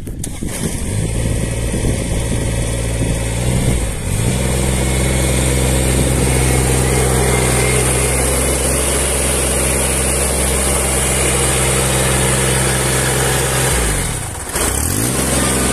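Kubota G23-II ride-on mower's three-cylinder diesel engine running steadily close by. Its pitch shifts about four seconds in, and near the end it dips and drops out briefly before coming back.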